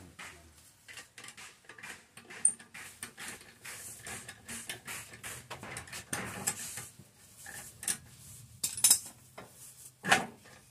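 Metal clicks and clinks of a T-handle socket wrench working bolts on a scooter, with tool and loose metal parts knocking together; a few sharper clinks stand out in the second half.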